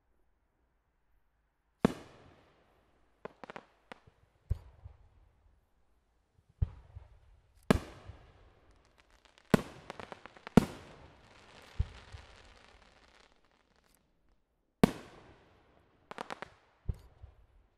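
Aerial fireworks bursting overhead: single sharp bangs a second or two apart, each with an echoing tail, and two short clusters of quick pops. The loudest bang comes about ten seconds in and is followed by a couple of seconds of crackle.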